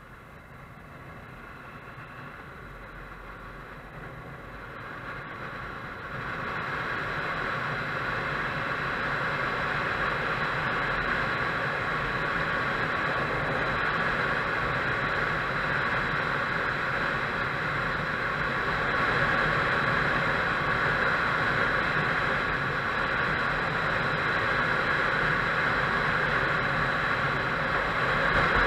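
Wind rush and engine noise of a Honda motorcycle on the road. It grows louder over the first six seconds or so, then holds steady.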